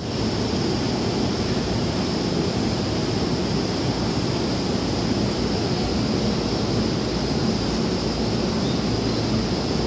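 Steady low rumble and hiss of a railway platform beside a standing electric commuter train, with a faint, steady high whine throughout.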